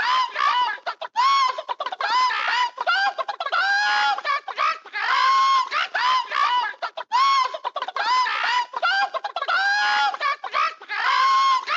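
A chicken clucking and squawking, pitched calls in clusters that repeat about every one and a half seconds.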